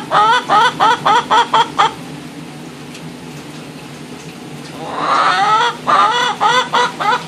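A hen talking: two runs of quick, upward-curving clucks, about four a second, the second run opening with a longer drawn-out call about five seconds in.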